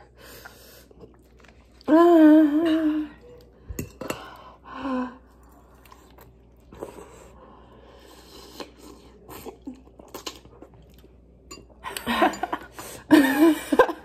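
People eating thick spicy instant noodles: chewing and slurping, with utensils clicking against ceramic bowls. A loud wavering voice sound comes about two seconds in, and more voice sounds near the end.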